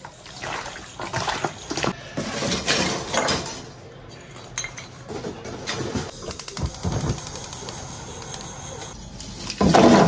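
Hands squelching and squeezing chunks of lamb with onion, egg and seasonings in a stainless steel bowl as the meat is mixed with its marinade, wet squishing with light scrapes against the bowl. Later a quick run of sharp clicks.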